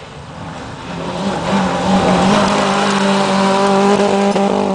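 Rally car engine approaching at speed on a gravel stage and passing close by, growing louder over the first two seconds and then held at a steady high-revving note, with the hiss of the tyres on loose gravel.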